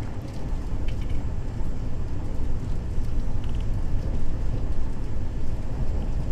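Vande Bharat Express running at speed, heard from inside the coach as a steady low rumble, with a few faint ticks.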